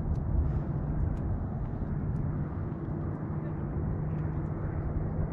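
Wind rumbling on the microphone over a steady low hum, with a few faint sharp ticks scattered through.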